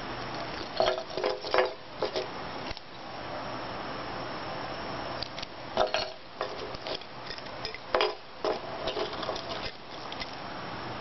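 Metal elephant keychains and their split key rings clinking and jingling as they are handled, in three bursts of light clinks: about a second in, around six seconds and from about eight to nearly ten seconds. A steady hiss runs underneath.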